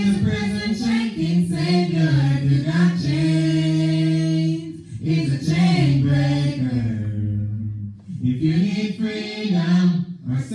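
Voices singing a gospel song without instruments, amplified through microphones, with long held notes and short breaks for breath.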